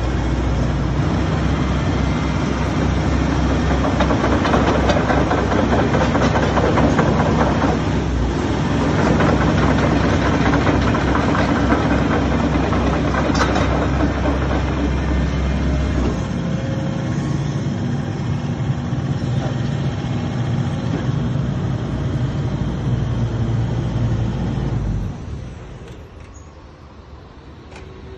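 Diesel engine of a Hitachi ZX135US-6 excavator running steadily, louder for a while in the middle. The sound drops away sharply near the end.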